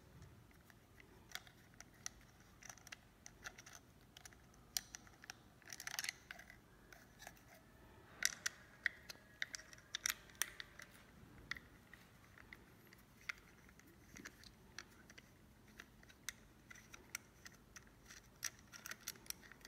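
Faint, scattered clicks and ticks of a small hex key and screws working against a plastic handlebar-display clamp as its bolts are undone.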